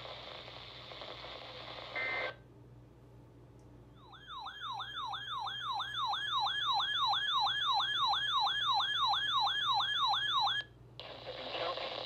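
A NOAA weather radio's alert siren sounding for a severe thunderstorm warning: an electronic sweeping whoop, about three sweeps a second, starting about four seconds in and cutting off abruptly near the end. Before it the weather broadcast's voice plays through the radio's speaker and stops with a short beep, and the broadcast talk resumes once the siren stops.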